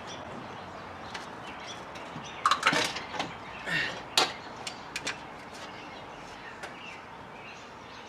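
Scattered light knocks and clicks, the loudest a cluster about two and a half to three seconds in and a sharp one a little after four seconds: handling and movement around a truck's engine bay.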